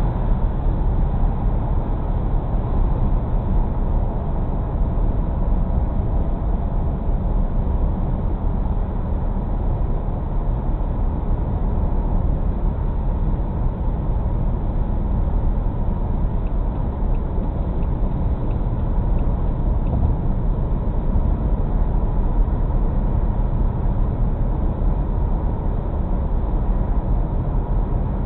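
Steady road noise of a car driving at highway speed, heard from inside the cabin: tyres on wet pavement with the engine's low hum.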